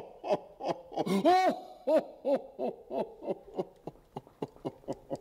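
A cartoonish sound effect: a string of short pitched blips, each rising and then falling in pitch, about three a second. One longer, fuller blip comes about a second and a half in, then the blips quicken and fade away.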